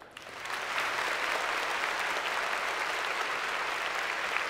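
Audience applauding, building over the first half-second and then holding steady.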